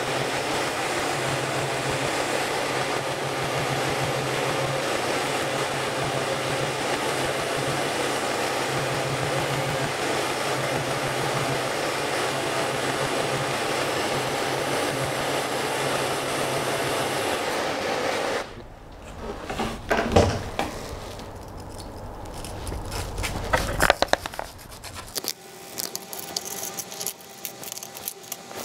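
SainSmart Genmitsu 3018 CNC engraver milling plywood: its spindle and the dust-extraction vacuum make a steady noise with a low hum, which stops abruptly about two-thirds of the way through. After that come scattered knocks and clinks as the plywood and its metal hold-down clamps are handled.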